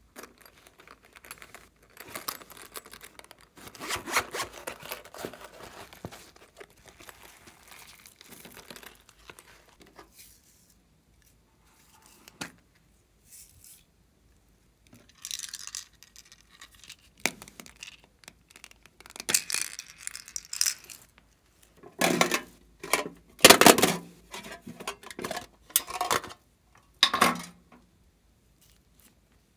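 Close-up handling of plastic cases and containers and of small beads sprinkled onto a tray of slime: a run of rustles and scrapes, then a scattered series of louder plastic clicks and knocks in the second half.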